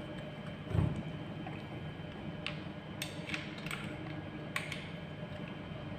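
A low thump a little under a second in, then a handful of light clicks and ticks of tools and metal parts as the four bolts on the trimmer's kick-starter assembly are screwed in.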